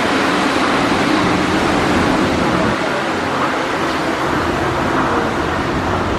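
Tokyo Monorail train pulling out of the platform, its running noise steady and then easing off slightly as it leaves.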